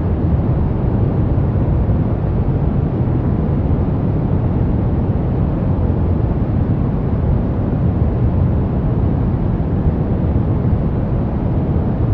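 Brown noise: a steady, deep, even hiss weighted toward the low end, with no changes.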